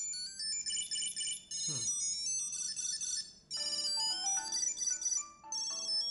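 Electronic ringtone melodies from a Tile Sport tracker and an iPhone: the phone's ringtone sounds as the tracker's button sets the phone ringing, with a lower run of notes joining about three and a half seconds in.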